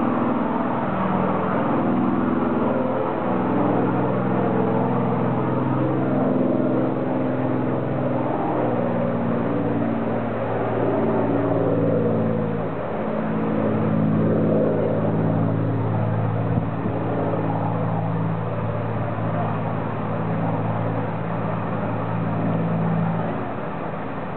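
P-51 Mustang's V-12 piston engine heard in flight as the fighter climbs away, a continuous drone whose pitch shifts a little as it goes.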